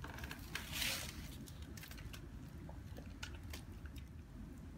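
A toy poodle eating from a small plate: faint chewing and licking, with scattered small clicks against the plate.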